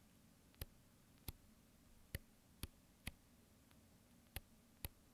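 Sony a7R III camera's control dial turned by thumb, clicking through its detents: seven sharp, separate clicks at uneven intervals.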